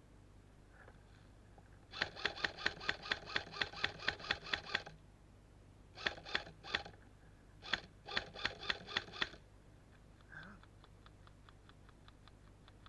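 Airsoft guns firing in rapid strings of sharp shots, about four or five a second, in three bursts. Fainter shots from farther off follow near the end.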